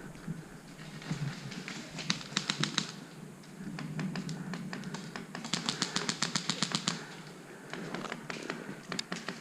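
Airsoft guns firing: a short burst of sharp clicking shots about two seconds in, and a longer string of about a dozen rapid shots around the middle, over the rustle of movement.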